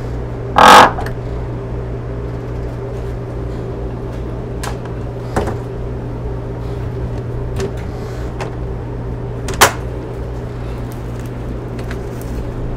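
Crew-cabin deck hatch lid on a yacht's cockpit being shut with one loud, short knock, followed a few seconds later by light clicks and a sharper click of a cockpit locker lid, over a steady low hum.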